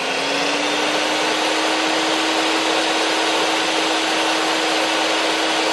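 Table saw running with nothing being cut: a steady motor hum and blade rush, the pitch finishing its rise to full speed about half a second in.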